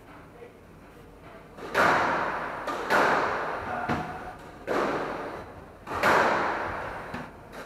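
Squash ball struck hard during a rally: four sharp smacks about a second and a half apart, each echoing around the court, with fainter taps in between.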